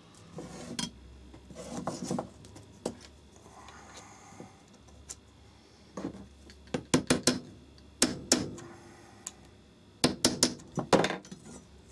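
A small hammer tapping a bolt head to flare a metal tube pin in a knife handle, pressed over a steel ball: groups of quick, sharp metallic taps in the second half, the last group near the end. Before them, soft clinks of the tools being set in place.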